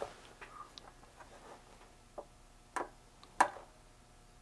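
Small sharp clicks and taps from multimeter test probes being handled and set against a circuit board. They come at irregular moments, and the loudest is about three and a half seconds in.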